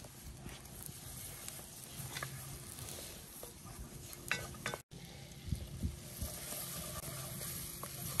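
Butter and flour sizzling softly in a cast iron pot as a wooden spoon stirs through them, with scattered light clicks of the spoon against the pot. This is the start of a butter roux, the pan running a little hotter than wanted.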